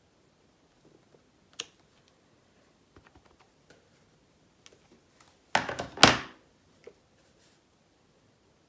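Clear acrylic stamp block handled on an ink pad and cardstock: scattered light clicks and taps, with a louder pair of knocks a little past halfway as the block is inked and pressed down.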